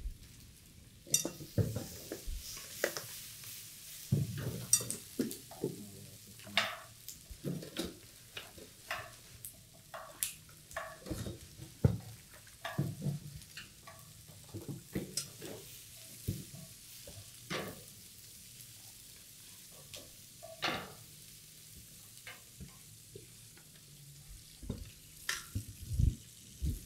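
Wooden spatula clacking and scraping in a nonstick frying pan as sweet corn, bell peppers and onion are stir-fried, over a light sizzle. The clacks come irregularly throughout; the sizzle fades after about ten seconds.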